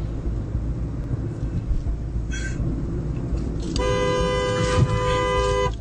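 Steady low road and engine rumble of a car driving, heard from inside the car, then about four seconds in a two-tone car horn sounds and is held for about two seconds as a warning to animals running across the road.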